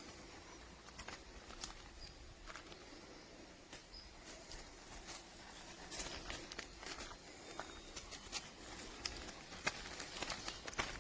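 A dog's footsteps: light, irregular taps and clicks that come more often from about six seconds in.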